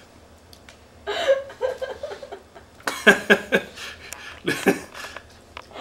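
Laughter in short bursts: a first bout about a second in, then louder bursts around three seconds and again shortly before the end.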